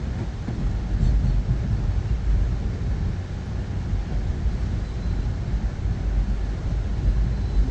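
Steady low rumble of an Amtrak Pacific Surfliner passenger train, heard from inside the coach.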